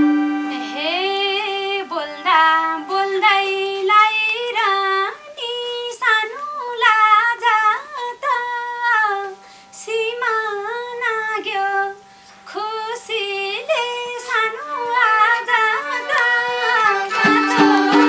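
Live Nepali dohori folk music: one high, ornamented melody line sliding between notes over a steady low drone, with two short breaks.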